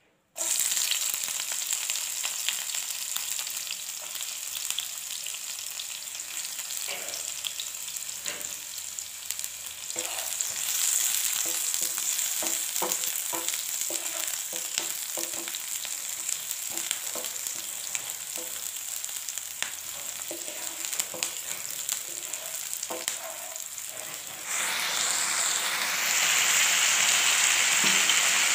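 Chopped onion sizzling in hot oil in a non-stick pan, starting suddenly, with a wooden spatula scraping and tapping against the pan as it is stirred. About 24 seconds in the sizzle gets louder and fuller as potato sticks and peas fry in the pan.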